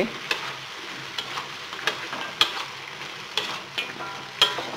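Giant river prawns sizzling in a wok of dark soy-based sauce, with a steady hiss and a metal spatula scraping and clicking against the wok about once a second as they are stir-fried.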